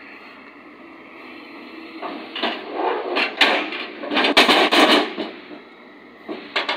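Steel loading ramps of a lowboy trailer swinging down and banging onto the road: a run of loud clatter and bangs over about three seconds, the heaviest about halfway through, then two short clicks near the end.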